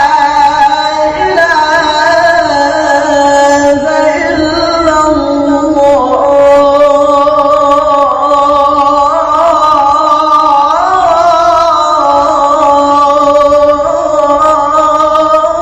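A man's voice chanting the adhan, the Islamic call to prayer, drawing out one long ornamented melismatic phrase with slow turns in pitch and no break for breath.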